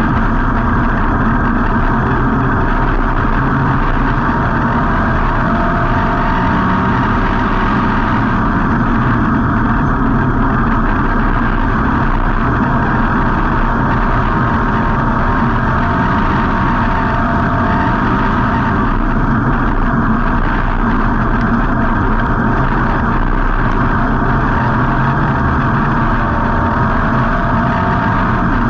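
V8 engine of a WISSOTA street stock dirt-track race car, heard from an on-board camera inside the car, running loud and fairly steady.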